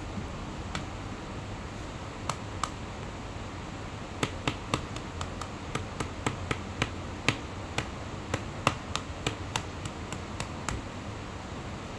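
About twenty sharp clicks at uneven intervals, sparse at first and then coming every third of a second or so from about four seconds in until near the end, over a steady low hum and hiss.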